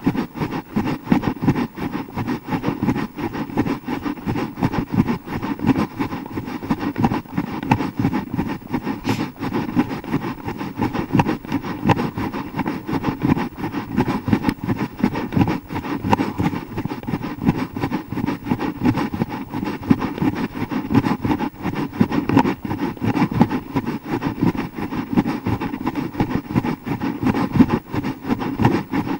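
Steady wind and handling rumble on an action camera's built-in microphone carried by a jogging runner, a low noise that flickers rapidly in loudness.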